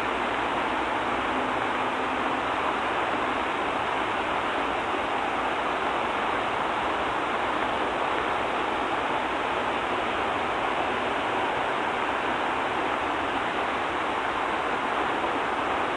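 Rain falling steadily: an even, unbroken hiss.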